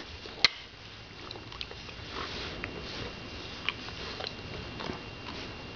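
Greater Swiss Mountain Dog puppy sniffing close to the microphone, with soft rustling and scattered light clicks, one sharper click about half a second in.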